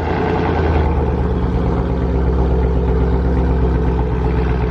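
2017 Ford Mustang GT's 5.0-litre V8 idling steadily just after start-up, running through a freshly installed Borla ATAK cat-back exhaust. Loud and low, with an even burble.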